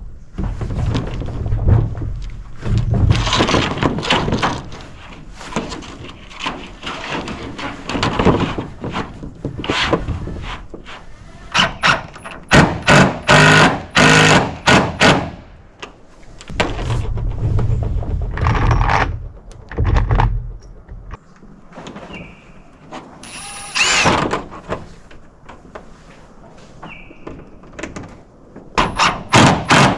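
Irregular thuds, knocks and rattling from work on a roof, with several quick runs of sharp clicks in the middle and again near the end.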